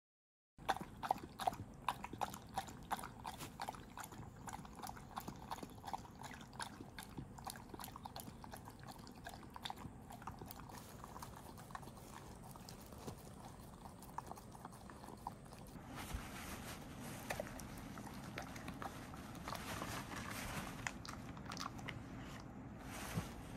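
Thirteen-year-old golden retriever eating from a bowl: a quick run of wet lapping, smacking and chewing clicks. Around 16 s in, the background hiss becomes a little louder while the clicks carry on.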